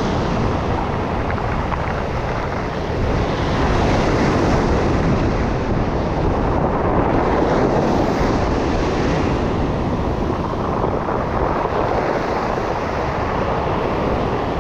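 Ocean surf breaking and washing up over a beach of rounded stones, swelling and ebbing every few seconds, with wind on the microphone.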